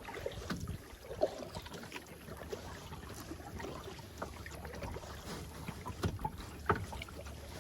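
Kayak paddling at a slow pace: the paddle dipping with soft splashes and drips, and a few short light knocks, the sharpest near the end.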